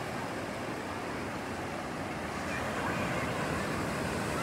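Ocean surf breaking and washing up the beach, a steady rushing hiss that swells a little about halfway through.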